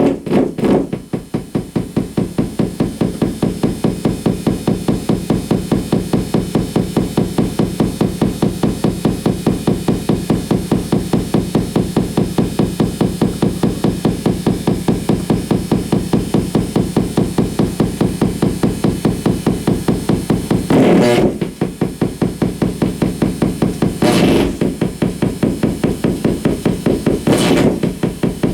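Amplified electrical noise from flickering compact fluorescent bulbs on dimmer switches, picked up by exposed guitar cables and left unprocessed. It pulses fast and evenly, about four or five beats a second, over a steady hum. Three brief, louder, piercing bursts come in the last third.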